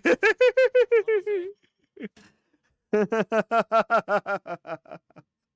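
A person laughing in two runs of quick 'ha-ha-ha' pulses, the second starting about three seconds in.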